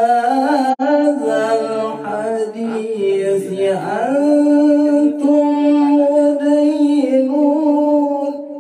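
A male qari reciting the Quran in melodic tilawah style, singing long held notes with ornamented turns of pitch, with a brief break just under a second in.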